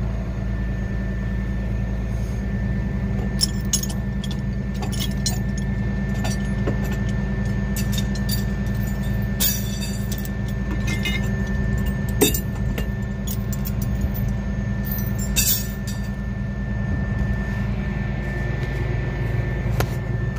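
Steel tow chain clinking and rattling in scattered sharp knocks as a J-hook axle chain is worked loose, over the steady low drone of an idling truck engine.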